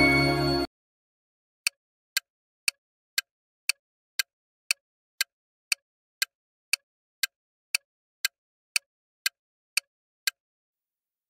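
Quiz countdown-timer sound effect: short clock-like ticks about twice a second, eighteen in all, with silence between them. A bright chime jingle is heard at the start and cuts off suddenly under a second in.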